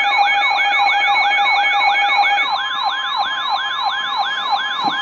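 Electronic siren-style alert tone: a rapid yelp of falling sweeps, about four a second, over steady beeping tones. One of the steady tones changes about halfway through. It is the alert sound that heralds a severe thunderstorm warning.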